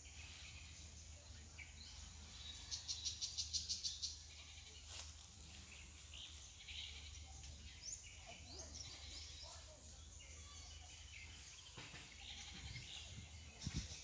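Faint garden ambience of scattered short bird chirps, with a rapid rattling call of about seven pulses a second lasting just over a second, about three seconds in.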